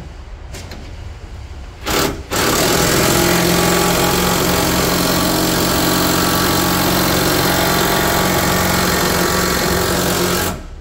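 Cordless drill/driver: a short blip about two seconds in, then running steadily at one speed for about eight seconds and stopping suddenly near the end, as it drives a fastener under the truck's rear bumper.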